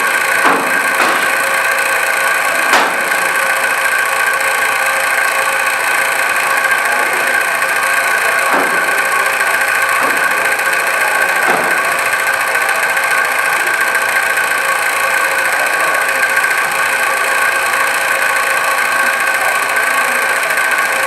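A steady, loud machine hum, like a motor running, with a few cleaver chops on a plastic cutting board in the first half.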